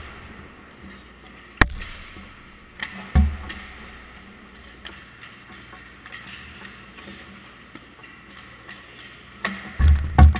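Hockey practice sounds on an indoor ice rink: pucks and sticks cracking, with one sharp crack about one and a half seconds in and a heavier knock about three seconds in. A cluster of loud knocks comes near the end, as the goalie moves close to the camera. A steady rink hum runs underneath.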